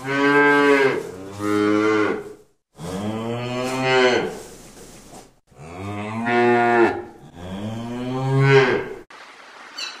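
Cows mooing: five long moos one after another, the last ending about a second before the end.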